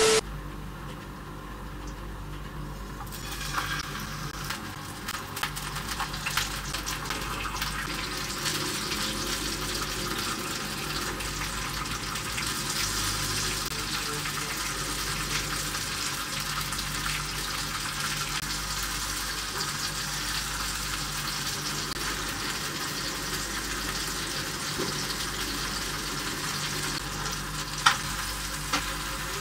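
Tomato slices frying in oil in a frying pan: a steady sizzle that grows louder over the first several seconds and then holds. Near the end there is a single sharp click of metal tongs against the pan.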